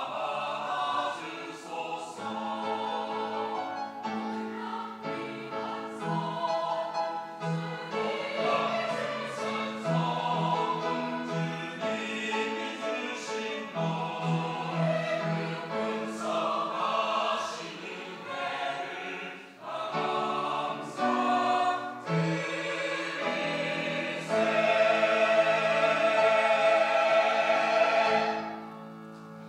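Church choir singing a sacred anthem in several parts. It swells into a loud held final chord about 24 seconds in, which cuts off just before the end.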